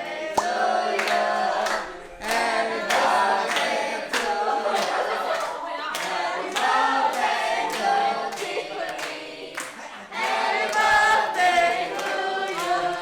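A small group of people singing together, unaccompanied, while clapping their hands.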